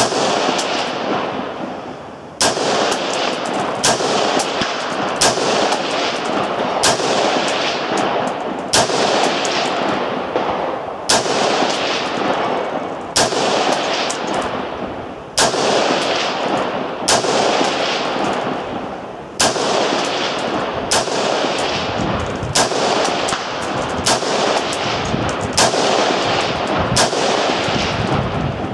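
Semi-automatic AR-15-pattern rifle in .223 firing a steady string of about twenty single shots, roughly one every second or two, each followed by a long rolling echo. The rifle is cycling on its own between shots on its first firing.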